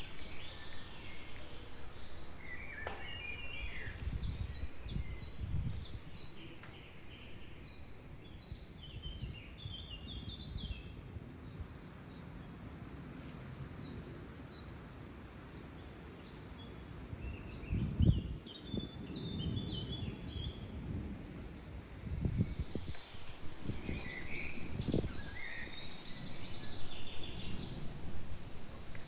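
Small birds chirping and calling now and then over a steady outdoor background hiss, with a few short low rumbles, the loudest about eighteen seconds in.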